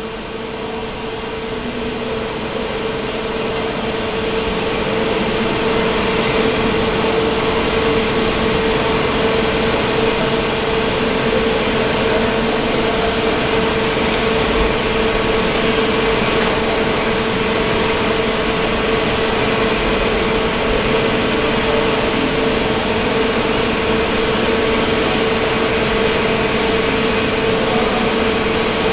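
Hydraulic wheel press running with a steady mechanical hum and one strong constant tone. It grows louder over the first few seconds and then holds level as the ram forces a railway wheel off its axle.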